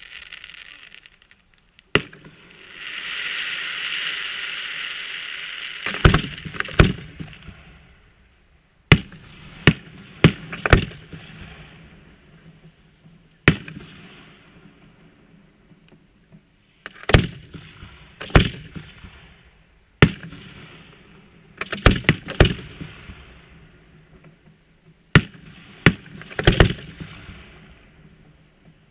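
Aerial firework shells bursting overhead: about fifteen sharp bangs at irregular intervals, several in quick clusters of two or three, each followed by a rolling echo. A long hiss runs for about five seconds starting just after the second bang.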